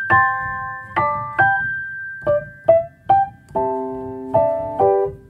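Background piano music: a slow melody of single struck notes that ring and fade, turning to fuller chords for the last couple of seconds.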